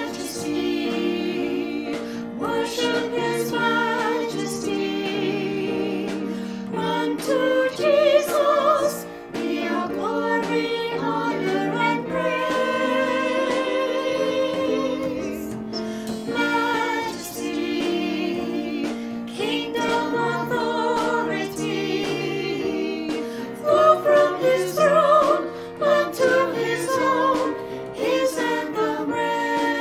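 Music with singing voices, a choir or vocal group holding long, wavering notes that change every second or so.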